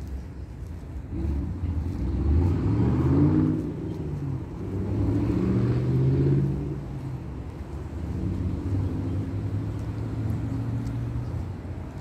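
An engine running past, its pitch rising and falling, loudest about three seconds in and again about six seconds in.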